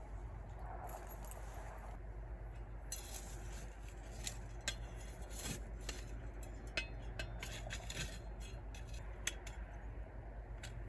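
Scattered light clinks and scrapes of small hard objects being handled, likely camp gear being packed up, over a steady low background noise.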